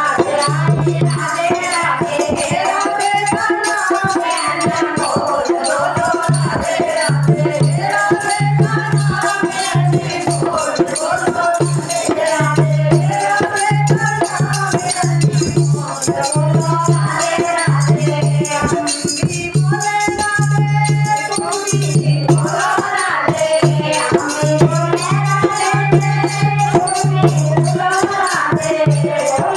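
Devotional Hindu bhajan music with rattling hand percussion and a melodic line that bends up and down in pitch, over a low bass note repeating about once a second.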